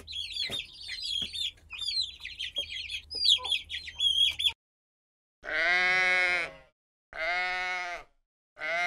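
Baby chicks peeping rapidly in a dense high-pitched chorus, which stops suddenly about four and a half seconds in. After a short pause come three separate sheep bleats.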